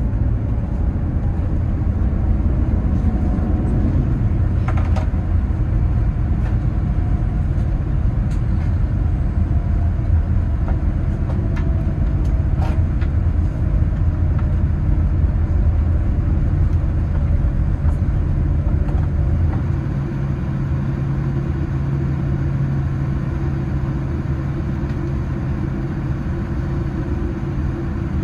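Boeing 787-9 airliner heard from inside the cabin while rolling on the ground after landing: a deep, steady rumble with a faint whine slowly falling in pitch and a few knocks and rattles. About twenty seconds in, the rumble eases to a steadier, lower hum as the aircraft slows.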